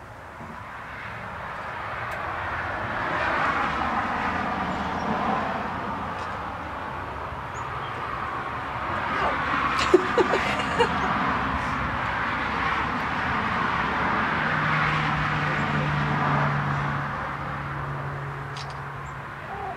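Vehicle noise, a broad rushing engine-and-road sound that swells and fades over many seconds. A low steady hum joins for the last five seconds, and a couple of light clicks come about halfway through.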